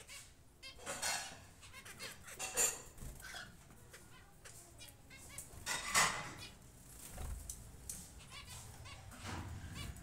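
A few short animal cries, the loudest about six seconds in, over a faint steady background hum.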